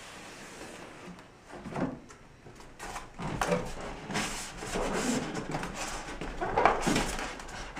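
Cardboard packaging being handled: the outer box slid off and the carton flaps pushed open, with rubbing, scraping and light knocks that get busier and louder about three seconds in.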